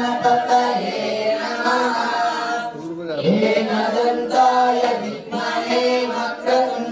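A group of young men chanting a Sanskrit hymn in unison, with one leading voice, the voices holding and moving through steady sung notes. There is a short break for breath about three seconds in.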